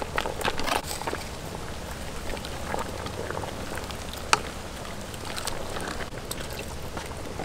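Soup boiling hard in a metal pot, a steady bubbling hiss, while a wooden spoon stirs it. Scattered clicks run through it, with one sharp knock about four seconds in.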